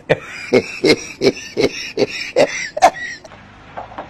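A person's voice in about eight short, rhythmic bursts, roughly three a second, fading after about three seconds.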